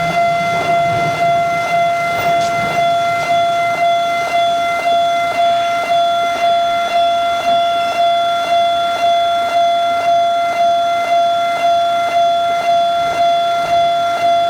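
Japanese level-crossing warning bell ringing its 'kan-kan' alarm: a single ringing tone struck over and over at a steady pace of about two strikes a second.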